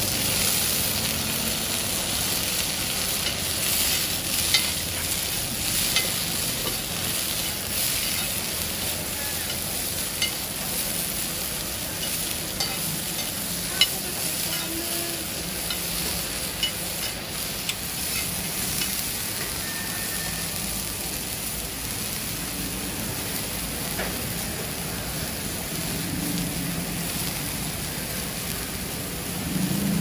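Bean sprouts sizzling steadily in hot oil on a heavy iron pan, with scattered sharp clicks and scrapes of a metal spatula stirring them.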